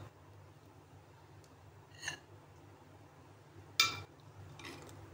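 Steel spoon scooping thick set yogurt from a clay bowl: a faint light clink about two seconds in and a short scrape near four seconds, over a low steady hum.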